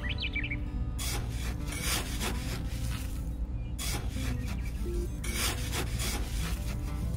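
A small hand trowel scraping and digging into damp sand: about five rasping strokes, a second or two apart.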